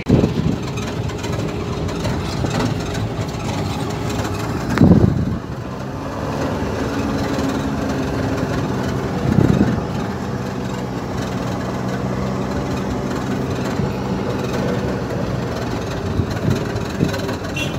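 Vehicle engine running steadily at low speed, heard from inside the cab, with two louder low thumps about five and nine and a half seconds in.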